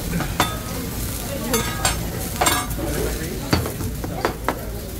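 Food sizzling on a hibachi teppan griddle while metal spatulas strike and scrape the hot steel plate, about seven sharp metallic clanks, some ringing briefly.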